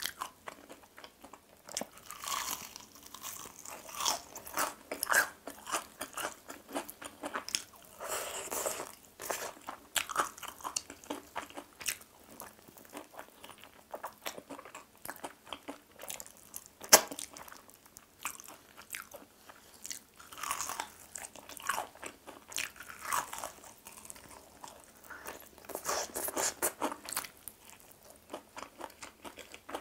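Crispy fried chicken drumstick being bitten and chewed: repeated crackling crunches of the fried coating between chewing sounds, with one sharp, loud crack a little past halfway through.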